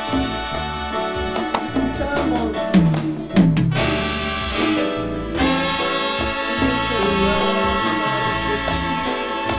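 Live band music led by a trumpet section playing an instrumental passage over bass, with a run of sharp hits about two to three and a half seconds in, then held brass chords.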